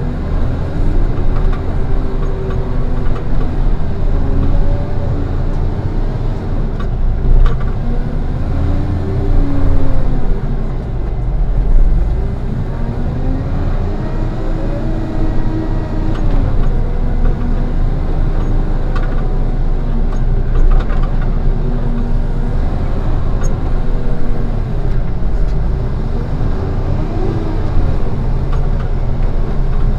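Diesel engine of a heavy construction machine working under load, its pitch rising and falling every few seconds over a steady low rumble, with a few faint knocks.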